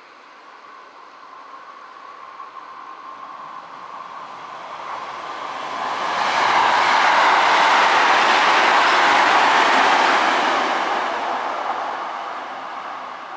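Marine Liner electric multiple-unit train passing through the station at speed. Its running noise builds as it approaches, is loudest for about four seconds as the cars go by, then fades as it moves off.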